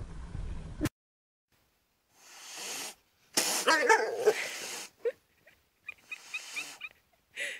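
A cat sneezing and coughing in a fit of separate bursts, the loudest and longest about halfway through, followed by several shorter ones.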